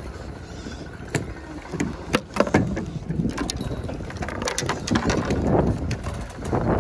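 Wind buffeting the microphone and choppy water lapping against a floating fishing raft, with scattered sharp clicks and knocks, growing louder in the second half.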